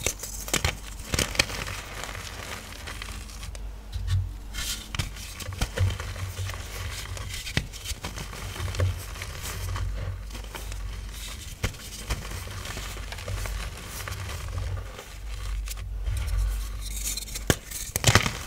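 Powdery pressed oxichalk blocks being crushed and crumbled by hand: a steady run of crunches, crackles and scrapes with many small sharp snaps.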